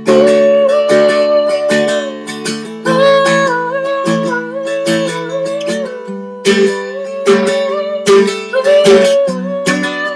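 Seagull Merlin, a four-string strummed fretted instrument tuned to D, strummed rhythmically. Its open strings drone under a melody on the top string.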